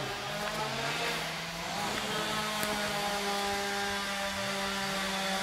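Petrol chainsaws running at a distance: a steady hum held at one pitch, with a second saw's pitch rising and falling as its revs change.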